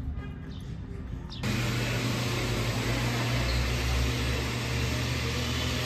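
Faint street ambience, then a sudden switch about a second and a half in to a louder, steady hiss with a low hum: indoor room noise of a café with machines running.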